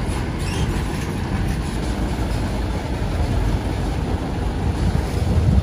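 Light dump truck's diesel engine running steadily at low revs as the truck moves slowly, a continuous low rumble.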